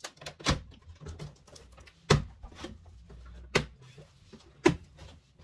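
Cardboard printer box being opened by hand: the taped top cut and its flaps pulled apart, with four sharp cardboard cracks spread over the few seconds and light rustling between them.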